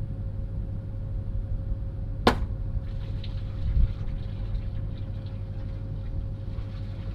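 One sharp, very short crack about two seconds in, over a steady low rumble.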